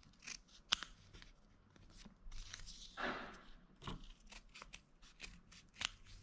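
Scissors snipping kinesio tape in a run of short, faint cuts while rounding the corners of a strip, heard as scattered sharp clicks, with a brief soft rush of noise about halfway through.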